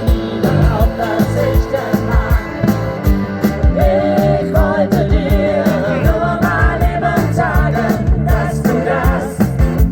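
A song with singing over a steady drum beat.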